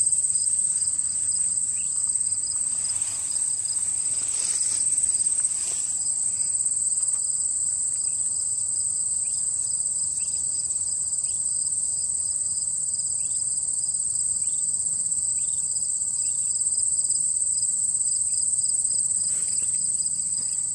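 Chorus of crickets trilling steadily at a high pitch, with a second, faster-pulsing trill beneath it. Faint short chirps come now and then.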